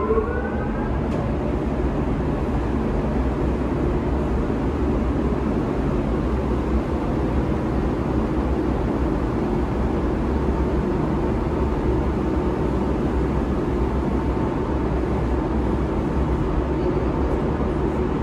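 Tea-processing machinery running with a steady, loud mechanical drone and low hum. A rising whine in the first second dies into the steady run as the motor comes up to speed.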